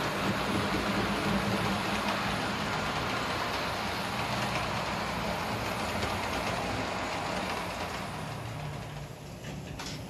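HO scale model trains running on the layout's track: a steady rolling rumble of wheels on the rails with a low motor hum as coaches and a steam locomotive pass. It dies down about eight seconds in.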